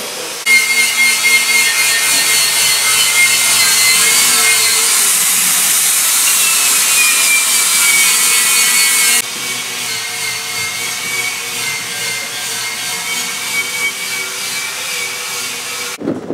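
Handheld angle grinder grinding steel: a high whine over a harsh rasp, the whine sliding down in pitch about seven seconds in. About nine seconds in it drops sharply in level and carries on more quietly.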